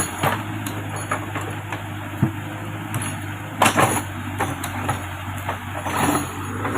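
Backhoe loader's diesel engine running steadily, with several sharp metallic knocks and clanks over it, the loudest a cluster a little over halfway through.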